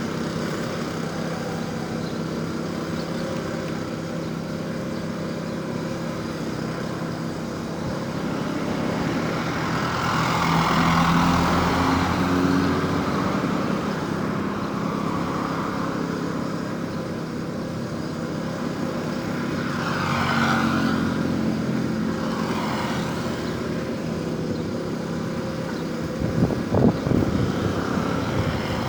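Road traffic: a steady engine drone under two vehicles passing by, about ten and twenty seconds in. Near the end comes a run of irregular knocks.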